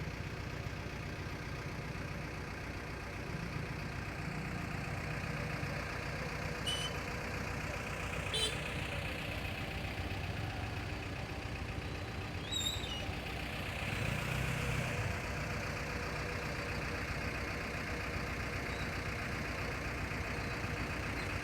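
Steady drone of a heavy engine, a truck or construction machine running, with a noisy rumble over it. A few faint sharp clicks and a brief high chirp come around the middle.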